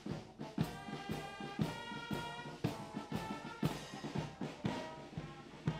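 Music with brass and a steady drum beat, about two beats a second.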